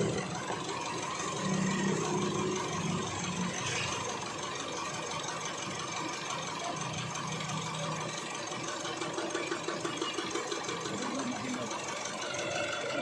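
Isuzu D-Max 4JK1 common-rail diesel engine idling with fast, even diesel clatter. The engine is misfiring, which the mechanic puts down to a possible leaking injector and slow fuel pressure build-up.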